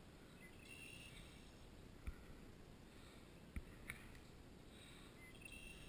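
Near silence with three short, sharp clicks from hands working a lure's hooks free of a caught largemouth bass.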